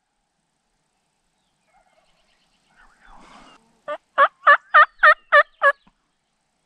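A series of seven loud turkey yelps in quick succession, evenly spaced at about four a second, starting about four seconds in after a faint rustle.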